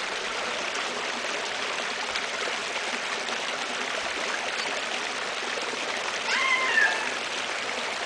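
Water spraying from a worm-shaped toy lawn sprinkler, a steady hiss. About six seconds in, a short high-pitched voice cries out briefly.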